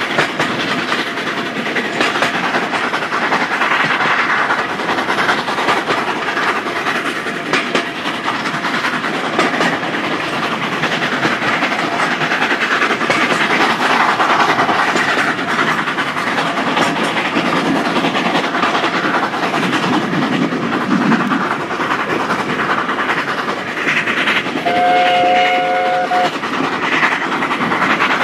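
Steam train running, heard from an open carriage window: the Hunslet 0-6-0 saddle tank locomotive's exhaust and the carriage wheels clicking over the rail joints. About 25 seconds in, the locomotive's steam whistle sounds once for a second and a half.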